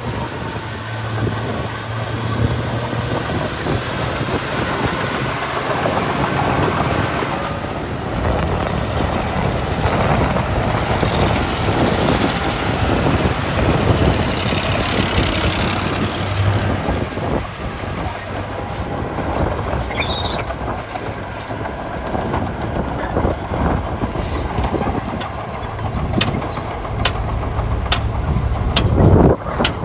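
Diesel engine of heavy earthmoving machinery running, a steady low hum under rough mechanical noise, with a few sharp clicks near the end.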